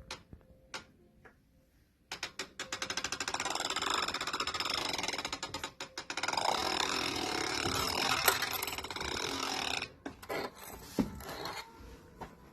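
Rapid mechanical clicking and rattling that starts about two seconds in, runs dense and fairly loud, then breaks up into scattered clicks near the end.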